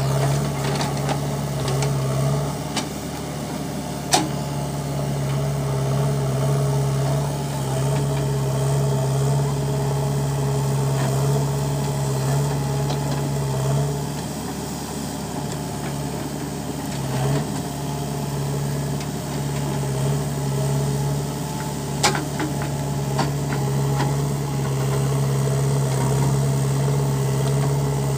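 JCB 3DX backhoe loader's diesel engine running steadily while the backhoe arm digs and swings soil, its note dipping and recovering as the hydraulics take load. A sharp metallic knock comes about four seconds in, and two more come about two-thirds of the way through.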